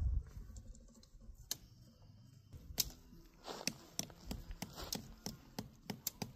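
Scattered light clicks and ticks, irregular and unevenly spaced, with some rustling, from tent gear being handled while a tent is laid out and pitched; a short low rumble at the very start.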